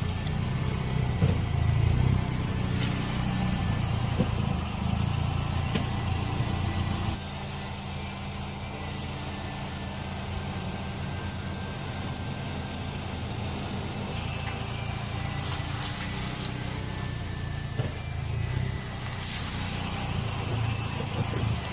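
A car's engine running slowly as its tyre rolls over and crushes fruit, an orange and then an apple, with a few sharp crunching snaps.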